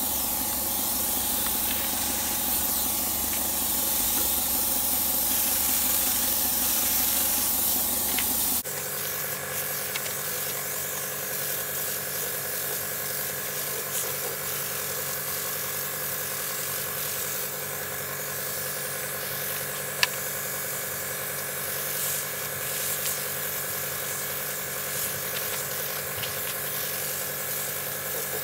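A compressed-air paint spray gun hissing as it sprays, over the steady running of an air compressor. The hiss drops abruptly about nine seconds in, and a single sharp click comes about twenty seconds in.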